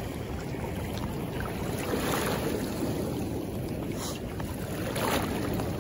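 River current flowing steadily, with wind on the microphone.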